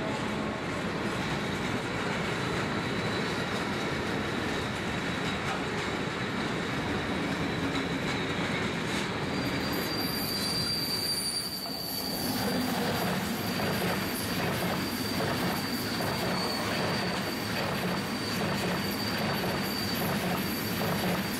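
Container freight wagons rolling past with a continuous rumble and a thin, steady high wheel squeal. About halfway through, the sound changes to an ICE high-speed passenger train running past, with a steady rushing noise and a high whine over it.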